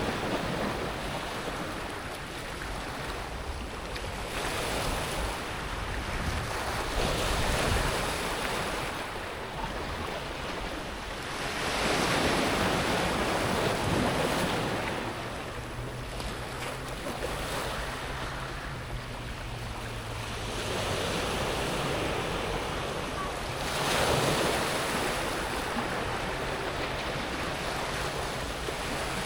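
Small sea waves breaking on a pebble beach and washing back over the smooth stones, the surf swelling and fading every few seconds.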